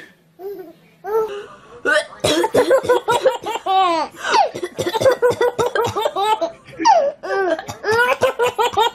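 A baby laughing hard in rapid, repeated bursts, starting about two seconds in after a near-quiet start.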